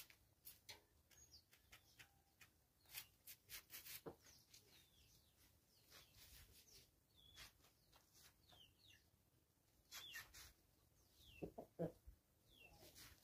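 Faint, short, high chirps that fall in pitch, scattered throughout, from birds among free-range chickens foraging on dirt. They sit over many light clicks and taps, with a short, louder cluster of low sounds about three-quarters of the way through.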